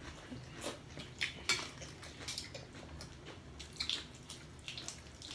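Scattered light clicks and taps of cutlery against plates and dishes while people eat.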